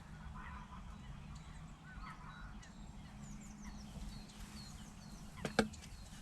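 Geese honking faintly a few times, with small birds chirping, over a steady low hum. A single sharp knock about five and a half seconds in is the loudest sound.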